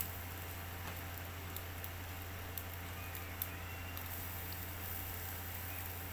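Beef satay sizzling over a charcoal grill, with a few sharp pops from the coals over a low steady hum.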